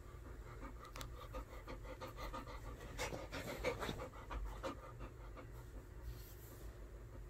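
Golden retriever panting rapidly close to the microphone, loudest in the middle and fading near the end.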